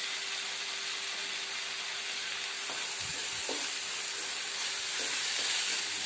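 Onion, garlic, ginger and chilli masala paste sizzling in oil in a frying pan as a wooden spatula stirs turmeric through it, with a few soft scrapes of the spatula on the pan. The paste is well fried, its oil separating and rising to the top.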